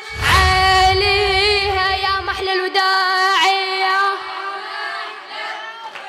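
A child's voice singing long, drawn-out notes of a Shia Muharram lament, with a low rumbling layer under it for the first two and a half seconds. The voice then carries on alone and fades out near the end.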